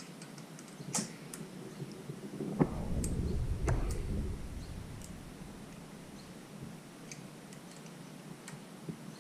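Scattered light clicks and taps of hand tools and engine parts being handled, with a sharper knock about two and a half seconds in followed by a low rumble lasting a couple of seconds.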